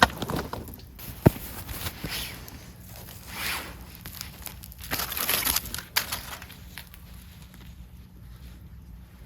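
Rustling and handling sounds, with a sharp knock near the start and another about a second later, then several brief swishing rustles that die away toward the end.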